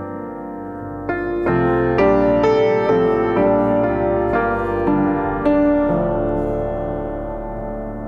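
Background piano music: slow, sustained chords, with new notes struck about every half second from about a second in, then held and fading away in the second half.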